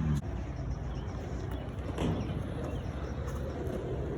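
Skateboard wheels rolling on the concrete of a skate-park bowl: a steady low rumble that swells briefly about two seconds in.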